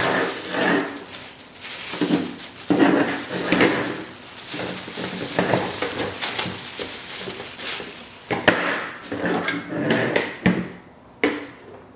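Plastic humidifier parts and packaging being handled: rustling with repeated knocks and clicks as pieces are taken apart and set down.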